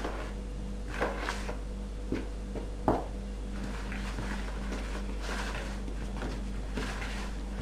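Hands kneading soft yeast dough in a plastic bowl: irregular soft squelches and light knocks against the bowl, the sharpest about three seconds in, over a steady low hum.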